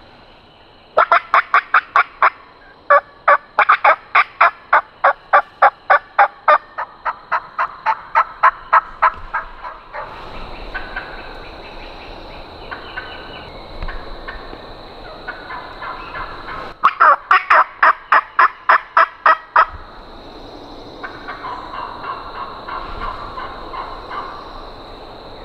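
Turkey yelping: a long, fast run of loud yelps at about three to four a second, then softer calling, then a second fast run of loud yelps, then softer calling again.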